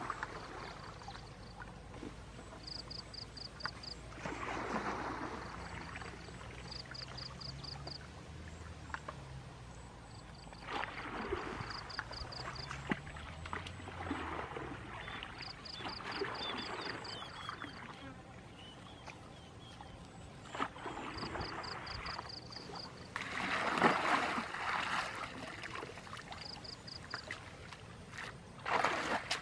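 Rural outdoor ambience: a high chirping trill, a quick run of about six clicks, repeats every two seconds or so, over irregular bursts of rustling noise that are loudest about four-fifths of the way through.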